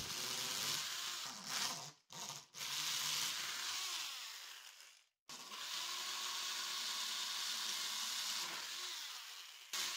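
Corded power drill running a spiral wood auger bit, boring a hole through a wooden skateboard deck: a steady motor whine over the scrape of the bit cutting wood. The sound stops suddenly twice, briefly each time, and fades a little before each stop.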